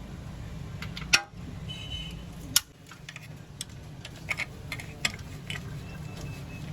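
Scattered sharp clicks and knocks of hand tools and metal parts being handled, with two louder knocks about a second and two and a half seconds in, over a steady low hum.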